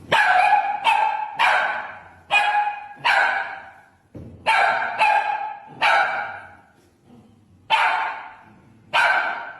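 A dog barking repeatedly: about ten loud, sharp barks in irregular bunches, each dying away quickly.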